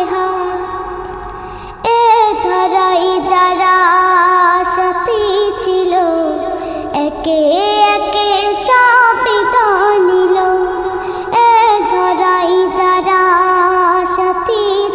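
A young girl singing a Bangla gojol (Islamic devotional song) in long, ornamented held notes that bend in pitch, with a short break between phrases about two seconds in.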